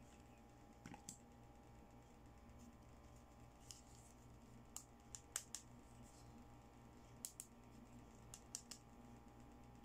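Small plastic toys handled by hand: about a dozen light, scattered clicks and taps of plastic, over a faint steady hum.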